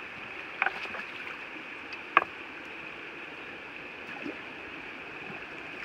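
Shallow stream water running steadily over a rocky bed, with a few short sharp clicks over it, the loudest about two seconds in.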